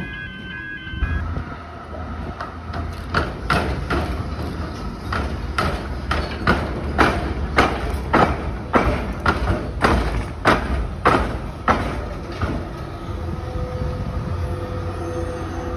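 Z3-class tram rolling slowly across the railway tram square, its wheels clunking over the gaps where the tram rails cross the train tracks about twice a second, over a low rumble of the tram's running gear. The clunking stops a few seconds before the end while the rumble carries on.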